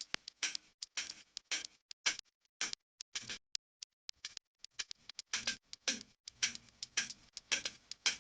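Kitchen utensils clicking and tapping in quick, irregular succession, a few sharp knocks a second, with a sparser stretch about three seconds in.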